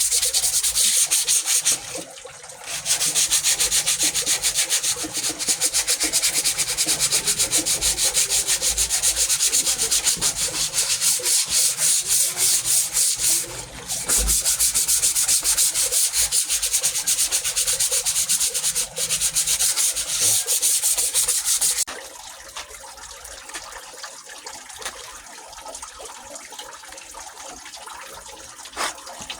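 Sandpaper rubbed rapidly back and forth by hand over a surface, a loud scratchy hiss in quick even strokes. It pauses briefly twice and stops about three quarters of the way through.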